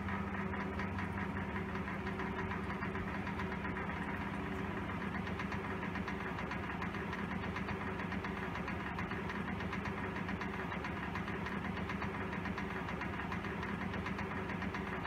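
1923 Emerson 16-inch six-blade ventilator exhaust fan with a 50-cycle motor running steadily at low speed: a steady motor hum with a fast, even rattle from the rotor, the rotor racket, and a blade out of balance.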